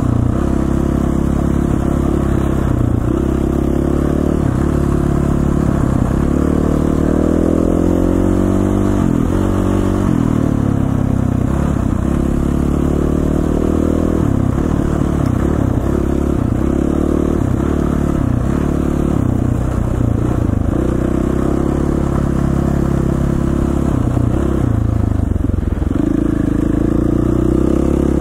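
KTM 450 single-cylinder four-stroke dirt bike engine under way, its revs rising and falling over and over as the throttle is opened and closed, with some clatter.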